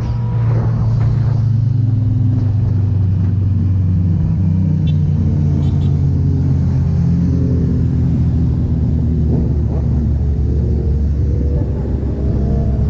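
Kawasaki Z900's inline-four running through a Firetong aftermarket exhaust, a steady deep exhaust note whose pitch sinks slowly for the first half and climbs again over the last few seconds.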